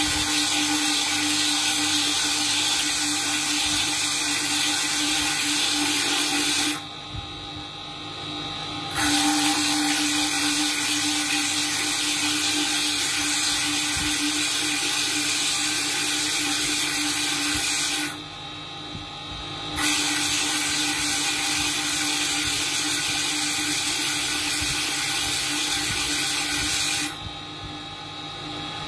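A bead-making machine's spindle running with a steady hum, while a sapphire bead pressed against its spinning wet bit makes a loud grinding hiss. The grinding comes in three spells of several seconds each, with short breaks about a quarter and two-thirds of the way through, and stops near the end, leaving the motor hum alone.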